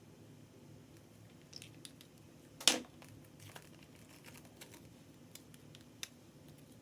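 Slime being worked by hand: scattered faint sticky clicks and crackles, with one loud sharp pop about a third of the way in.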